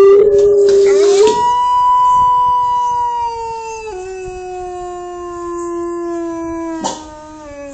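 Timber wolf howling: one long howl that rises in pitch about a second in, drops a step about four seconds in, then slides lower and fades near the end. A sharp click sounds about seven seconds in.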